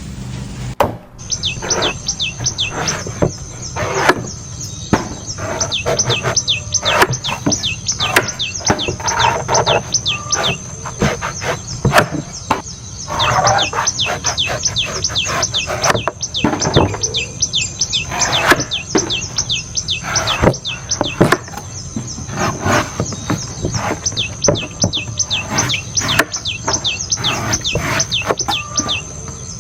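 Knife strikes chopping into a coconut, heard as repeated sharp hits. Birds chirp throughout in rapid, falling calls over a steady high-pitched whine.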